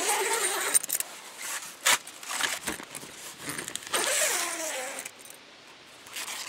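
Zipper and nylon fabric of a rooftop tent being pulled and worked by hand, in uneven rasping bursts, with a sharp click about two seconds in.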